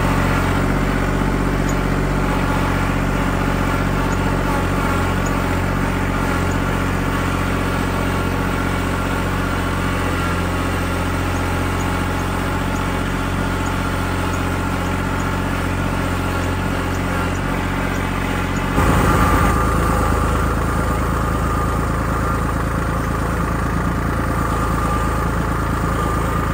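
Tractor engine running steadily as the tractor, with its front-end loader, drives across the yard. The engine gets louder and its note changes about three-quarters of the way through.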